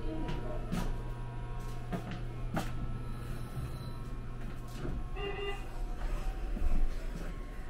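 Cabin noise inside a Meitetsu μSKY airport express train car: a steady low hum with scattered clicks and knocks.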